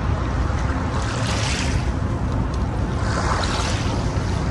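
Wind buffeting the microphone with a steady low rumble, over the rush of small waves washing on a pebble beach, swelling about a second and a half in and again near three seconds in.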